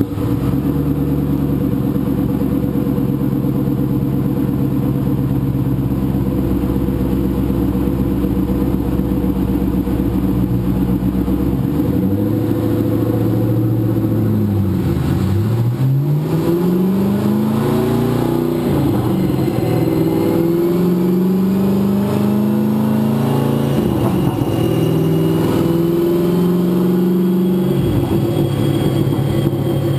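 Twin-turbo Ford GT engine running on a chassis dyno: it holds a steady pitch for the first twelve seconds or so, then the revs drop and climb again several times as it shifts up through the gears under load. A thin high whine rises along with the revs in the second half.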